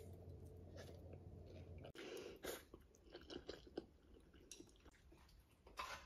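Faint eating sounds: a child slurping and chewing rice noodles eaten with chopsticks, in short scattered bursts.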